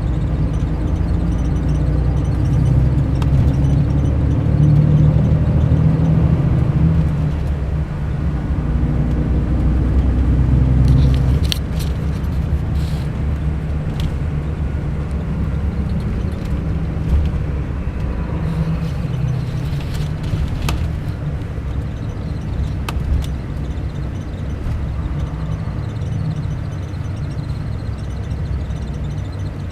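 Mercedes-Benz O500 RSD coach's Euro 5 BlueTec diesel engine running, louder for about the first eleven seconds and then dropping to a lower, steady run. A few short sharp clicks and hisses come over it midway.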